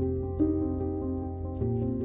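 Slow, soft solo piano music: held chords ringing on, with a new note struck about half a second in and another about a second and a half in.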